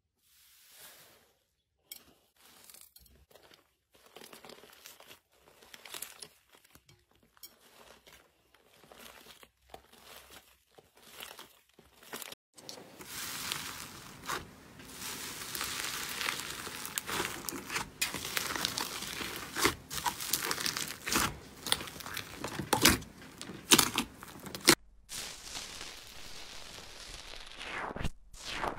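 Slime being squeezed and pressed by hand, making small crackles and pops. The pops are sparse and faint at first, then about halfway through they turn into dense crackling with sharper, louder pops.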